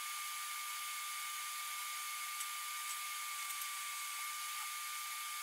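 CNC mill end-milling a slot in 316 stainless steel under flood coolant, played back sped up 20 times: a steady hiss of coolant spray and cutting, with a thin steady whine and no low end.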